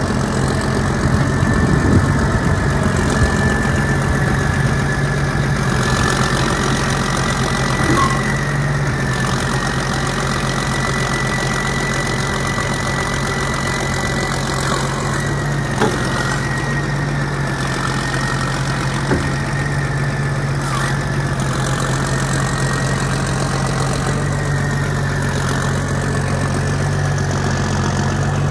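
John Deere 9400 four-wheel-drive tractor's Cummins N14 six-cylinder diesel idling steadily, with a constant high whine over the engine note.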